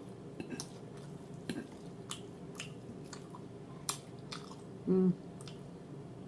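Close-up chewing of fried chicken, with scattered wet smacking clicks of the mouth and a sharper click about four seconds in. A short hummed "mm" near five seconds.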